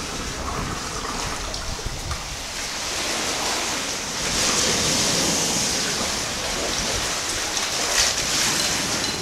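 Bay water surging and sloshing in the enclosed space under a covered deck, with a hollow echo. It swells about four seconds in, and there is one sharp click near the end.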